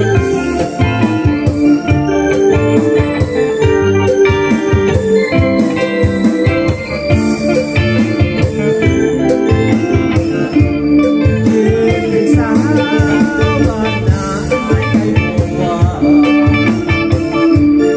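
Live band music: electric guitar and an organ-toned electronic keyboard playing over a steady beat.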